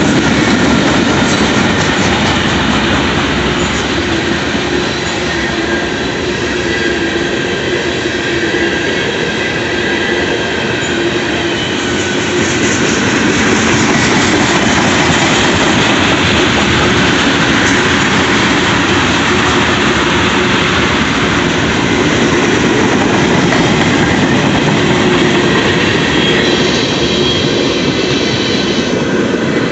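Cars of a long manifest freight train rolling steadily past, their wheels clattering over the rails with faint high wheel squeal.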